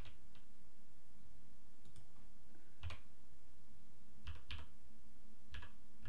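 A handful of separate keystrokes on a computer keyboard, unevenly spaced, as a short numeric code is typed in.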